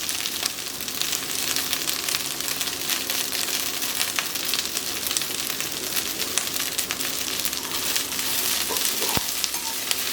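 Fresh curry leaves and dried red chillies sizzling and crackling steadily in hot sesame oil in a pan, being roasted till black. One sharp click about nine seconds in.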